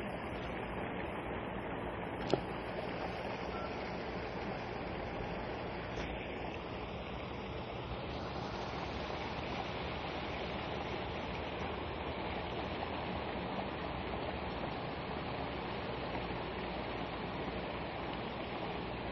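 Steady outdoor rushing noise with one sharp click about two seconds in.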